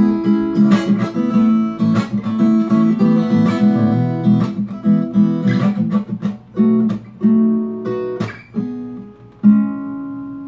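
Acoustic guitar strummed in a song's instrumental close. The strums thin out, and a final chord is struck about nine and a half seconds in and left to ring.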